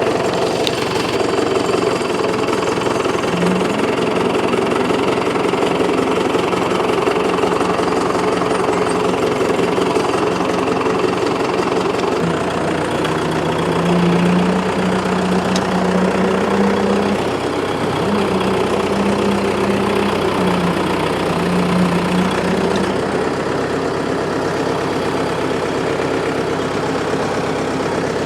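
Case 831C tractor's diesel engine running steadily, its tone shifting a little through the middle stretch.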